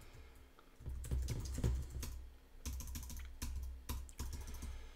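Typing on a computer keyboard: a quick, uneven run of key clicks that starts about a second in.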